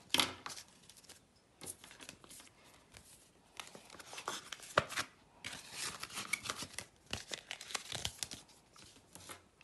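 Cash envelopes and papers rustling and crinkling as they are handled on a desk, with sharp taps and clicks throughout, the loudest shortly after the start and about five seconds in.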